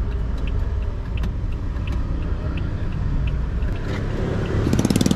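Car on the move: a steady low road and engine rumble with a turn-signal indicator ticking about every two-thirds of a second. Near the end a louder engine with a fast rattle rises close by.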